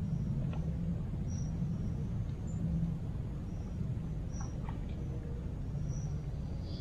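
Quiet outdoor night ambience: a steady low rumble, with faint short high chirps, likely insects, every second or so and a few faint ticks.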